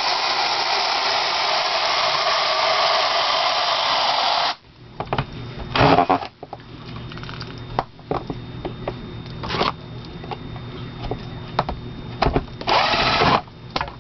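Cordless drill running steadily for about four and a half seconds, then stopping abruptly. It is spinning a reversed quick-change bit that works the rubber gasket lip over the dryer door glass. Knocks and clicks from handling the door and glass follow, with a couple of short bursts of noise.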